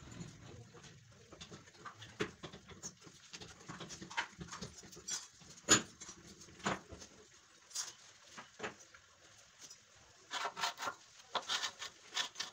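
Scattered knocks and taps of wooden battens being handled and set on a concrete floor, with one louder knock about six seconds in and a quick run of knocks near the end.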